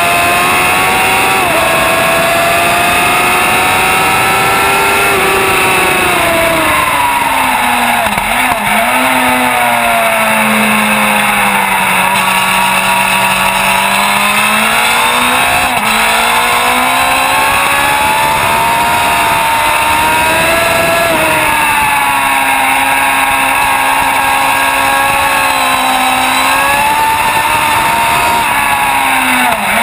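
Sport bike engine at racing revs, heard from on board. Its pitch falls steadily as the bike brakes hard into a corner, breaks briefly at gear changes, then climbs again on the throttle and holds high before dropping once more near the end.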